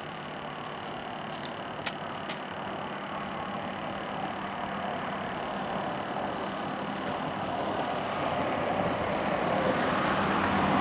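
A road vehicle approaching, its tyre and engine noise growing steadily louder.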